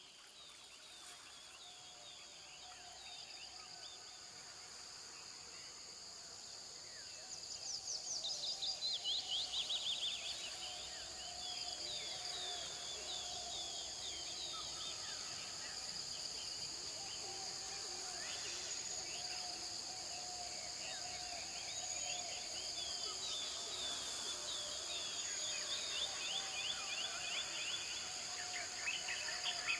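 Insects droning steadily in two high, even tones while several birds call, with a louder run of quick falling chirps about a third of the way through.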